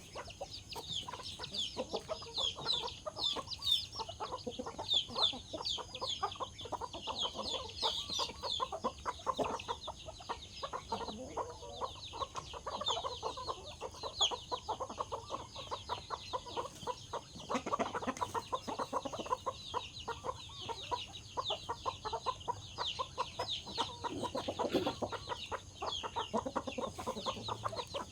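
A group of chickens clucking over food, with many high, short, falling peeping calls and a dense run of quick ticks throughout.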